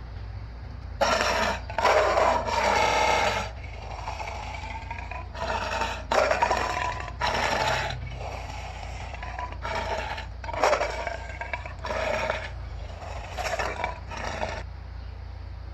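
An animal calling over and over: about a dozen harsh, pitched calls, each under a second, with short gaps between them.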